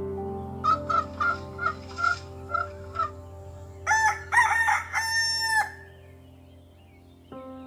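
Chicken clucking in a run of about eight short calls, then a rooster crowing once, long and loud.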